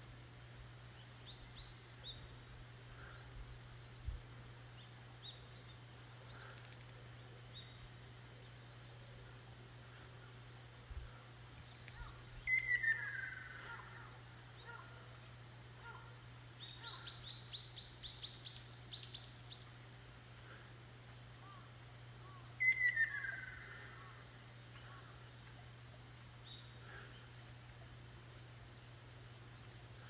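Ruddy kingfisher calling twice, about ten seconds apart: each call is a rolling trill that falls steadily in pitch. Between the two, another bird gives a quick run of higher notes, over a steady high background chorus.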